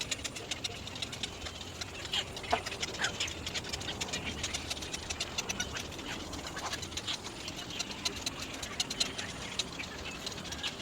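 Little egrets at the nest: a steady patter of fine clicks and rustling, with a few short, high squeaky calls.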